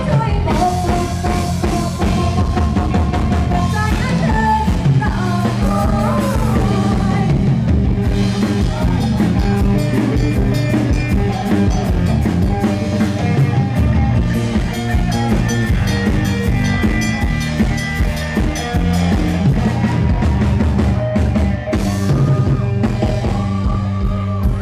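Live band playing a song on drum kit and electric guitar, with a singer's voice carrying the melody at times.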